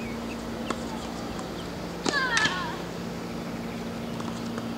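Outdoor background with a steady low hum and a few faint knocks. About two seconds in, a brief wavering high-pitched call that wobbles up and down in pitch.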